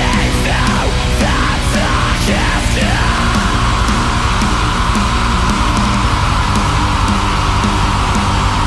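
Black metal music: dense, loud, distorted band playing. In the first three seconds a quick series of sweeping pitch glides runs down and up, after which a steady high layer holds over the band.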